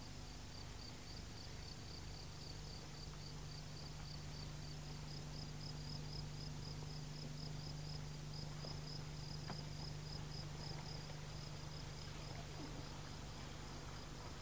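Faint cricket chirping: an even train of high chirps, about three or four a second, over a low steady hum.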